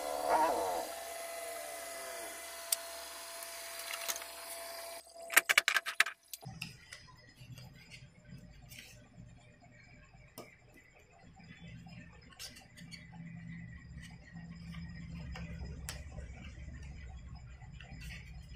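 Hands handling a TV's LED backlight panel and diffuser sheets: a quick run of sharp clicks and rattles about five seconds in, then faint scattered ticks over a low hum.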